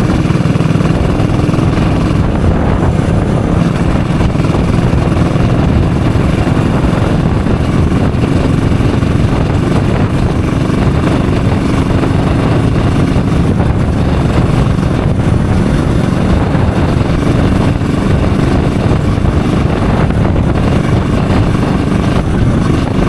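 Yamaha single-cylinder motorcycle engine and exhaust running at a steady cruise, with road and wind noise.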